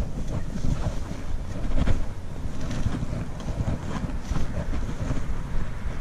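Wind buffeting a GoPro's microphone through a windsock: a steady, fluttering low rumble.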